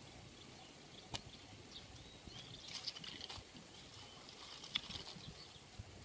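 Faint outdoor ambience with scattered high chirps in the background and two sharp clicks, about a second in and near the end, from hands working the bamboo-and-rubber trap.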